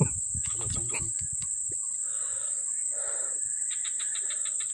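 Steady high-pitched drone of insects, with a fast run of ticks near the end.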